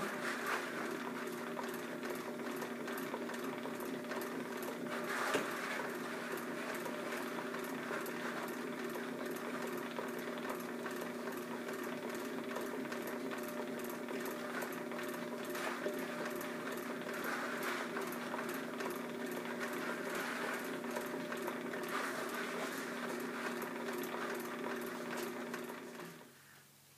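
Electric drum carder running steadily as wool is carded, a motor hum with a regular tick about twice a second. The sound cuts off near the end.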